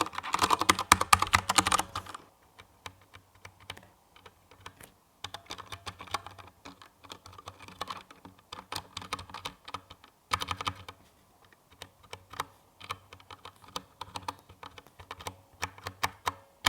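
Typing on a DURGOD Fusion mechanical keyboard with Cherry MX Brown switches. A fast, dense flurry of keystrokes for about the first two seconds, then slower, lighter keystrokes with short pauses, and another quick burst about ten seconds in.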